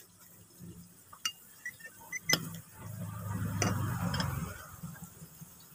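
Metal spoon and fork clicking now and then against a plate while eating. About three seconds in, a low rumble swells for a second or so and fades.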